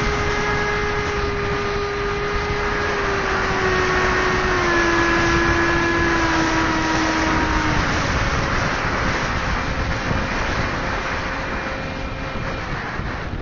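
Electric motor and propeller of a Multiplex Twister RC plane whining steadily over a rush of wind noise. The whine steps down in pitch a few times from about three seconds in, then fades under the wind after about eight seconds.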